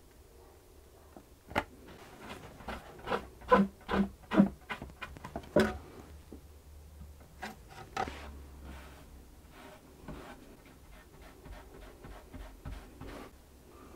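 A run of sharp knocks and clicks against a cello's wooden body as a clamp is fitted over a freshly glued rib crack, the loudest of them a few seconds in. Afterwards comes softer, scratchy rubbing as excess white glue is wiped off the rib with a damp sponge.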